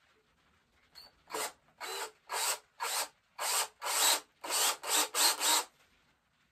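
Cordless drill boring the spout hole into the solid tip of a powder horn, run in about ten short bursts of the trigger, roughly two a second, the bit grinding into the horn with a rasping sound.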